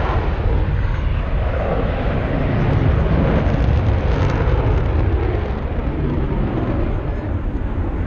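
Jet aircraft engines running on the airfield: a loud, deep, steady roar that swells a little about three seconds in.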